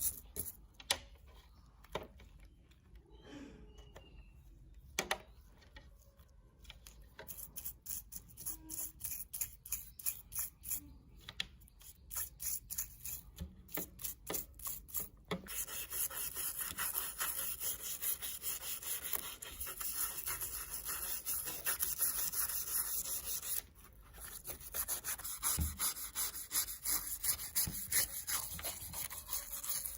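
Hand rubbing and scraping on a small hard object in quick repeated strokes. The strokes are sparse at first and turn fast and continuous about halfway through, with one brief pause.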